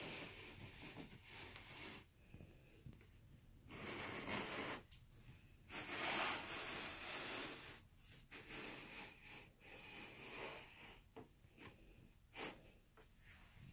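Faint rustling and rubbing noises in several soft bursts, with a few light clicks near the end.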